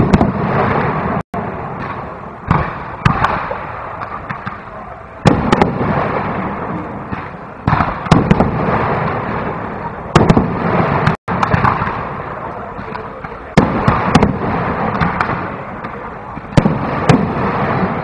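Aerial fireworks display: shells bursting in a rapid series of loud bangs every second or two over continuous crackling. The sound cuts out for an instant twice.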